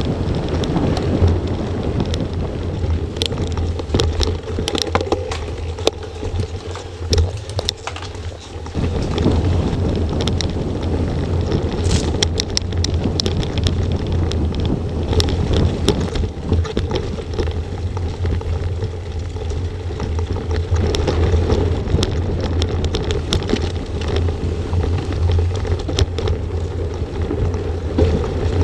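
Wind buffeting an action camera's microphone on a mountain bike ridden fast over dirt trail, with tyre rumble and many sharp clicks and clatters from the bike over bumps.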